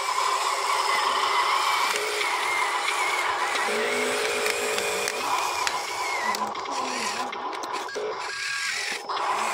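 Small electric drive motor and gearbox of a Huina RC dump truck whining steadily as the loaded truck drives, the pitch wavering slightly.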